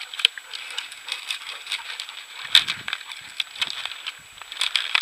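Footsteps crunching and brushing through dry weeds and patchy snow, with many irregular crackles of stems against clothing and one heavier thump about two and a half seconds in.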